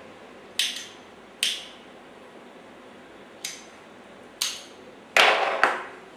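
Cigarette lighter being struck: four sharp clicks spaced a second or so apart, then a louder, longer strike near the end as the cigarette gets lit.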